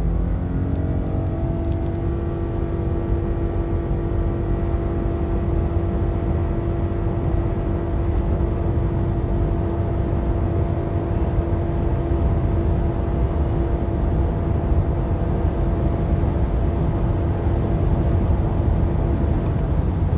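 Inside the cabin, the Subaru Crosstrek's 2.5-litre flat-four boxer engine under full throttle, held at one steady high pitch by the CVT while the car keeps gaining speed, over a steady rumble of road and wind noise. The engine note drops away just before the end.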